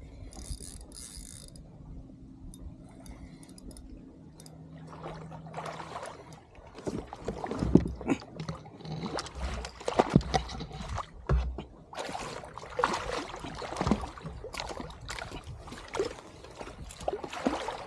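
A hooked striped bass splashing and thrashing at the surface beside a kayak as it is reeled in: irregular loud splashes from about six seconds in.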